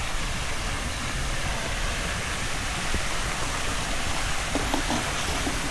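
Steady rushing of falling water from a park water feature.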